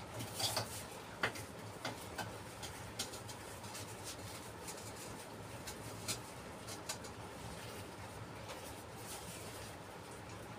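Scattered clicks and scrapes of slate stone and a trowel being worked with mortar, several sharp ticks in the first two seconds and a few more later, over a faint steady hum.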